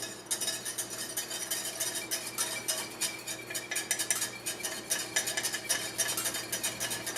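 Whisk clicking and scraping rapidly against a pot as cornstarch is whisked into hot sweet and sour sauce to thicken it and keep it from clumping.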